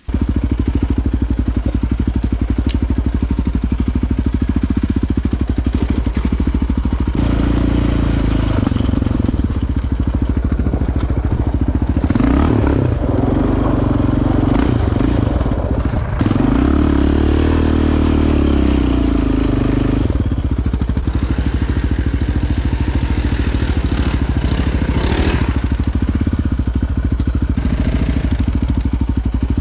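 Quad (ATV) engine running steadily while riding, its pitch shifting up and down several times as the throttle changes.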